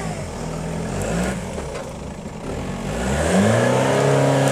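Off-road vehicle engine revving in short surges, then a longer, louder rev that holds near the end.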